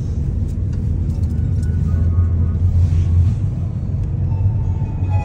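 A car driving, heard from inside the cabin: a steady low rumble of engine and road noise. Music comes in faintly about two seconds in and grows more noticeable near the end.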